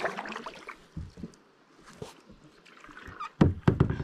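Water trickling and lapping at a kayak, then a cluster of loud knocks and rubbing close to the camera about three and a half seconds in as a fishing rod is grabbed and handled.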